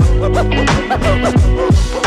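Background music with a steady beat, sustained synth notes, and deep bass notes that slide down in pitch.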